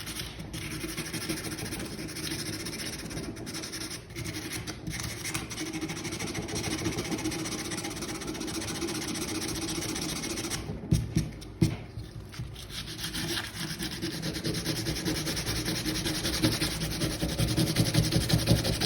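Rust being scrubbed off a metal hand tool by hand with an abrasive, rapid back-and-forth rubbing strokes to smooth the surface. It pauses briefly about two-thirds of the way through with a couple of knocks, then resumes more strongly.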